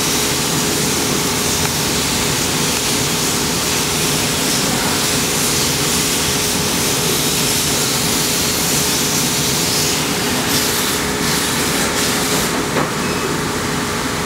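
Laser fabric-cutting machine's air system running: a steady airy hiss with a faint steady hum-tone under it.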